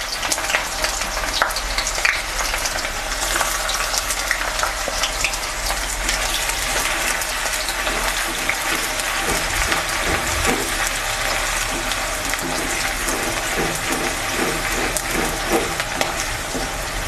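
Chopped onions sizzling in hot mustard oil and caramelised sugar in a kadai, a steady frying hiss with scattered clicks and scrapes as they are stirred.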